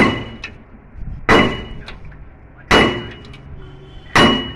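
Hammer blows on the steel rear-axle hub of a Mahindra 265 DI tractor, driving the axle shaft out of its housing to replace a worn bearing and seal. Four heavy strikes about a second and a half apart, each with a short metallic ring.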